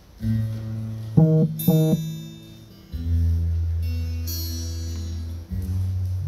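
A worship band starts a song's instrumental intro: guitar chords strummed over a keyboard. Two sharp accented strums come about a second in, then held chords that change twice.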